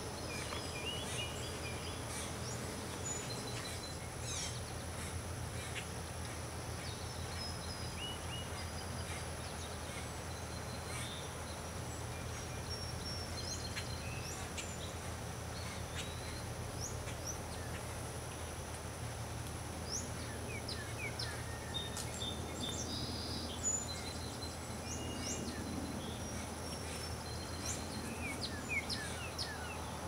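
Small birds chirping and calling on and off, short high notes and quick sweeping calls that grow busier in the second half, over a steady low hum.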